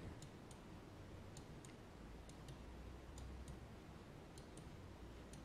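Faint, irregular clicks of a computer mouse, about a dozen, as the button is pressed and released for each brush stroke, over near-silent room tone.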